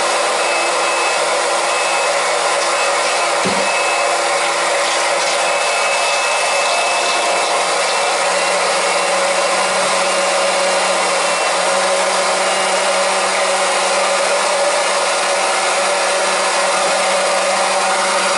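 Small electric transfer pump running steadily, drawing propylene glycol antifreeze from a bucket through a hose to fill a boiler heating system.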